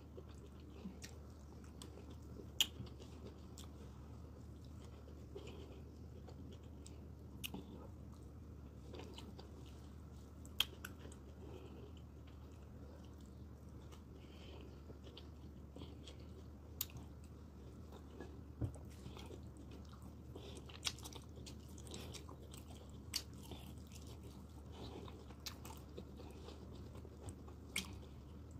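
A person chewing and swallowing mouthfuls of fufu and vegetable soup: soft chewing and wet mouth noises with scattered sharp smacks and clicks, a few of them much louder.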